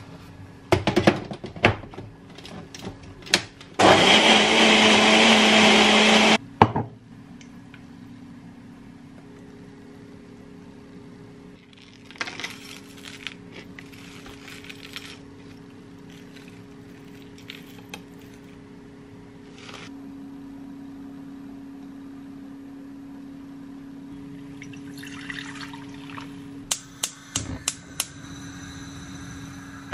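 Personal blender running for about two and a half seconds, blending a smoothie, cutting off suddenly, after sharp clicks of its cup and blade lid being handled and seated. A steady low hum and scattered light kitchen clicks follow.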